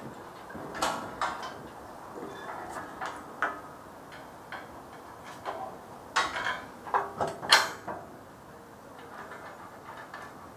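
Steel on steel: a slung structural steel piece knocking and clanking against the frame's steel plates as it is worked into the connection by hand. Scattered sharp metal knocks, most of them and the loudest bunched a little past the middle.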